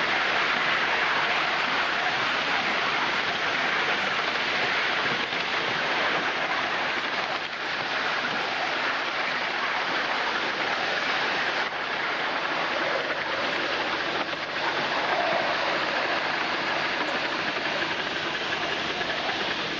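A 5-inch gauge model of an LNER B1 steam locomotive running, heard from right behind it as a steady rushing hiss of steam and wheels on the rails.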